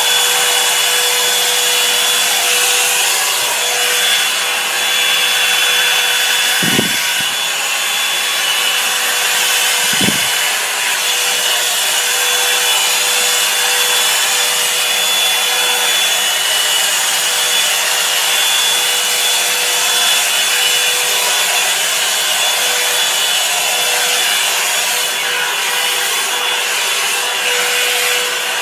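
Revlon one-step hair dryer and styler brush running: a steady blast of air with a constant motor hum and a faint high whine, as the brush is worked through hair. Two short dull bumps about 7 and 10 seconds in.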